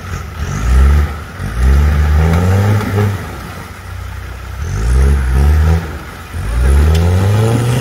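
Off-road 4x4's engine revving hard in four surges, the pitch climbing in each before it drops back between them.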